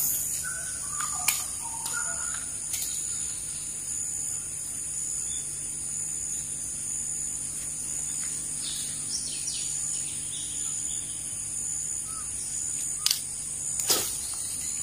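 Steady high-pitched insect drone with scattered bird chirps and calls. A few sharp clicks, with a louder sharp splash-like hit near the end as a cast lure lands in the water.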